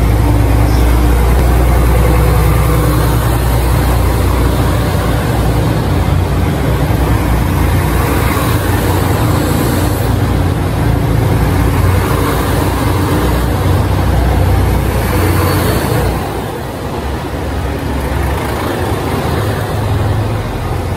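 Chizu Express HOT7000 'Super Hakuto' diesel train running past along the platform, a loud steady low diesel rumble that eases off about 16 seconds in.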